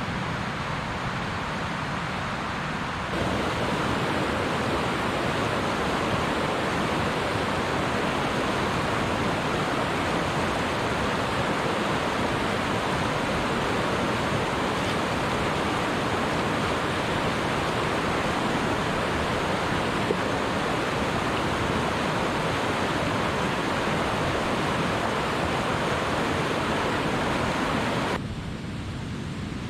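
Fast white-water mountain stream rushing over rocks, a steady roar of water. It gets louder about three seconds in and drops back a little near the end.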